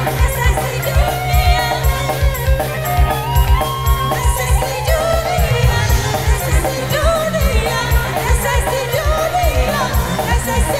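Live band music, amplified through the PA, with a woman singing over a fast, steady drum beat.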